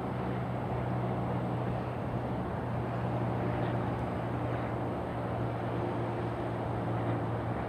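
Boeing 757 on final approach: a steady rushing drone of its jet engines with a low hum under it.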